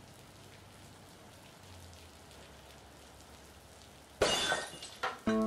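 A pane of glass shattering: a sudden loud crash about four seconds in, ringing and fading, with a smaller second crash about a second later, after a faint steady hiss. Music with held tones begins at the very end.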